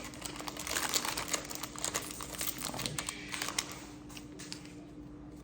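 Foil booster-pack wrapper crinkling as it is handled and opened, with rustling of trading cards. The crackling is densest for about the first four seconds, then thins out.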